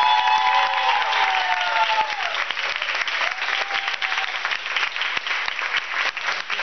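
Audience clapping and cheering, with several high whoops in the first two seconds and another brief one around four seconds in.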